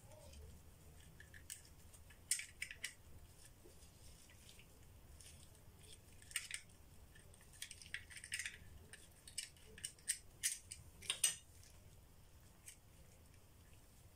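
Faint, irregular light clicks and clinks of small hard objects being handled, coming in a few clusters, the loudest about eleven seconds in.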